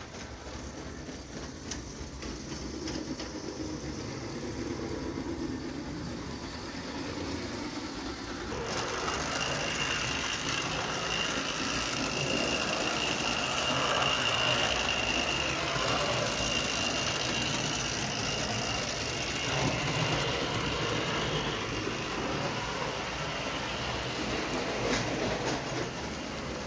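Tinplate O-gauge toy train running on metal three-rail track, its wheels rattling over the rails with a steady high-pitched motor whine; the running noise gets louder about a third of the way in.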